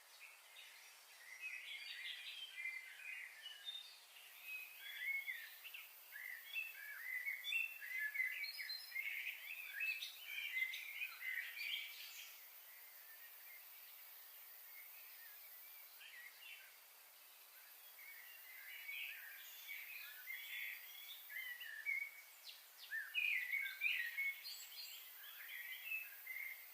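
Small birds chirping and twittering in busy bursts, with a lull of several seconds in the middle.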